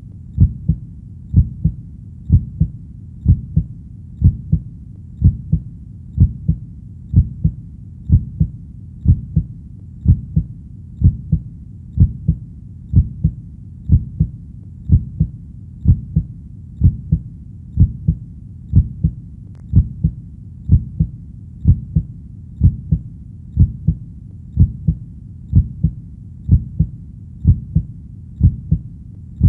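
Human heartbeat: a low double thump, lub-dub, repeating evenly about once a second over a faint steady low rumble.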